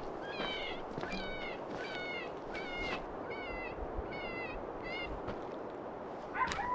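Recorded cottontail rabbit distress cries played from a FoxPro electronic predator caller. It is a wavering, cat-like cry repeated about every three-quarters of a second, seven times, stopping about five seconds in. A short, louder sound follows near the end.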